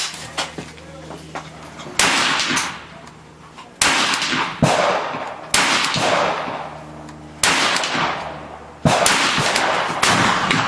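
FN PS90 semi-automatic carbine firing 5.7×28mm rounds: a string of single gunshots, one every second or two, each with a long echoing tail.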